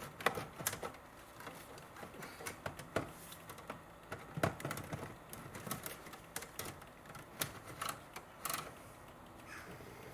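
Irregular clicks and knocks of plastic connectors and wiring being handled and plugged into the back of a car radio, louder ones about four and a half seconds in.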